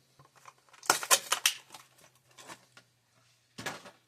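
Plastic blister packaging of a die-cast toy car being handled, with a cluster of crinkles and clicks about a second in and a few more near the end.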